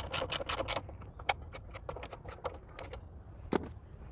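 Ratchet wrench clicking in quick strokes while loosening fittings to remove the intercooler, then a few single clicks about a second apart.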